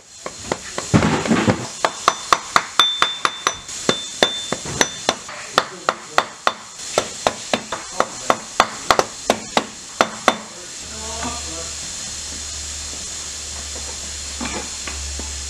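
Wooden mallet tapping repeatedly on the aluminium differential cover and flange of a transmission case, about three quick knocks a second, to work the differential loose for removal. The tapping stops about ten seconds in, leaving a steady low hum.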